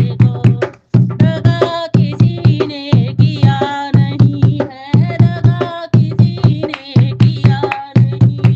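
Devotional bhajan music: a steady, quick drum beat under a melody that slides in pitch.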